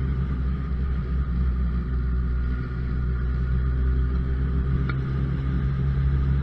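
Motorcycle engine running steadily at low road speed, its pitch holding nearly constant.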